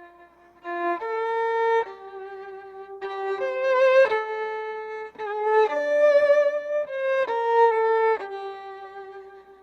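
Violin playing a slow melody, one held note after another, with vibrato on the longer notes.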